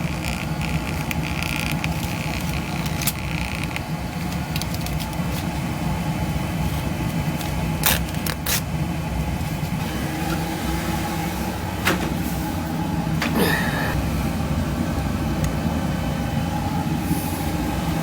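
Beckett oil burner firing a boiler: a steady low rumble of the burner and flame, with a few sharp clicks and knocks about 8, 12 and 13 seconds in.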